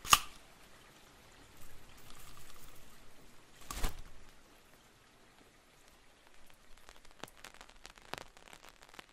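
Faint patter of scattered clicks and crackles, with a sharp click right at the start and another burst about four seconds in.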